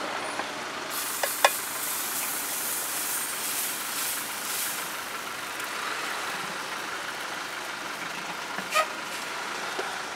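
Dosa batter sizzling on a hot cast-iron tawa: a hiss that starts about a second in and eases off after about four seconds, with a few sharp clinks.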